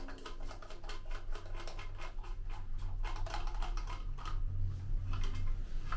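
White plastic toilet fill valve being twisted apart by hand: quick irregular plastic clicks and scrapes, over a steady low hum.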